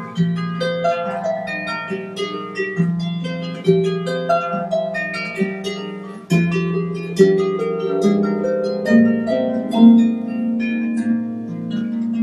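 Celtic harp music: a stream of plucked, ringing notes over low bass notes that are held and repeated, with a brief dip and a fresh strong note about six seconds in.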